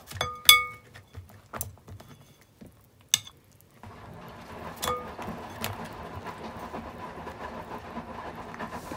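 Hard objects clinking, three times: a sharp clink with a brief ringing tone about half a second in, the loudest, another near three seconds and a third near five. A steady low hum sets in about four seconds in.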